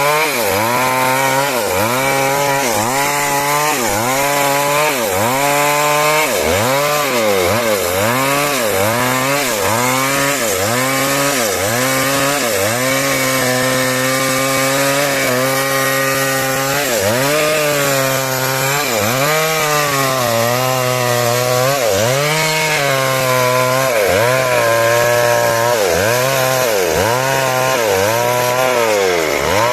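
Chainsaw running under load as it cuts wood. The engine speed repeatedly dips and recovers, about once a second, with a couple of steadier stretches of a few seconds in the middle.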